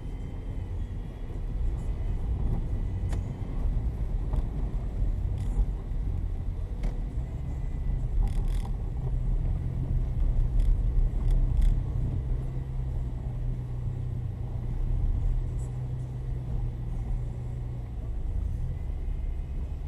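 A car driving: low engine and road rumble, with a steady engine hum that settles in about eight seconds in and fades near the end, plus a few light clicks and knocks.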